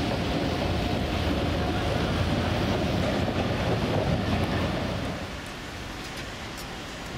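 Steady low rumble of street traffic and an approaching tram, with wind buffeting the microphone. It drops suddenly to a quieter traffic hum about five seconds in.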